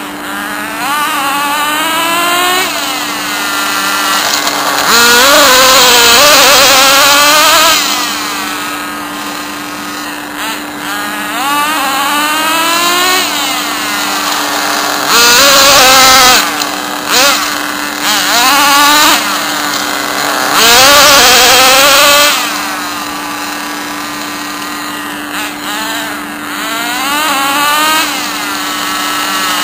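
Small old nitro RC car engine running on petrol, revving up and down over and over in short rising bursts, with three louder stretches about five, fifteen and twenty-one seconds in.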